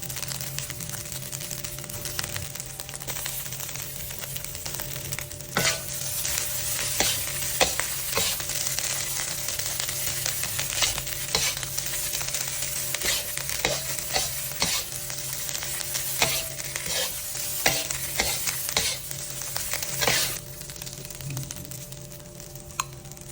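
Fried rice with shredded chicken sizzling in a pan while a spatula stirs and tosses it, scraping and knocking against the pan many times. The sizzle and the knocks die down near the end.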